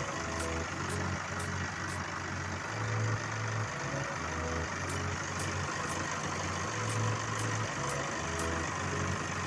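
Chevrolet Colorado's common-rail diesel engine running steadily, with a light regular ticking, after its fuel-pump suction control valve was replaced to cure a crank-no-start with code P0089.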